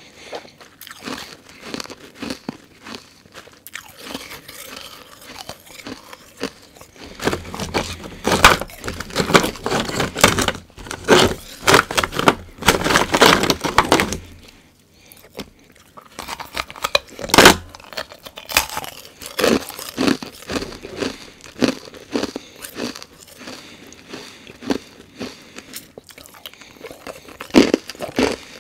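Close-up crunching and chewing of carbonated ice: a steady run of sharp, crisp crunches that grows dense and loud in the middle, pauses briefly about halfway, then resumes with one loud bite and more chewing.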